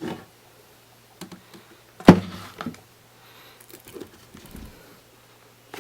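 A few short knocks and thunks, as of objects being handled and set down, the loudest a sharp knock about two seconds in, over a low steady hum.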